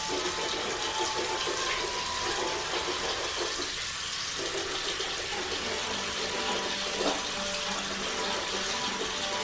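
Water running steadily, with a small click about seven seconds in.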